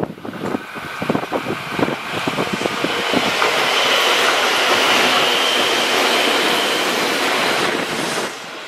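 A Tobu 8000 series electric train passing close by: its wheels clatter over the rail joints, then the rushing noise of the cars going past carries a steady high whine, and it cuts off suddenly near the end as the last car clears.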